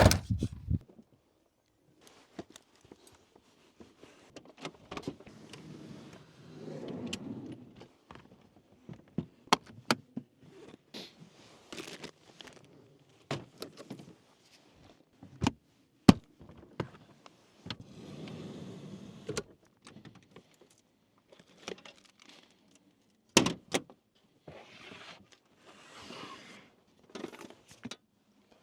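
Things being handled and set down: scattered clicks and knocks with stretches of rustling, the sharpest click about sixteen seconds in.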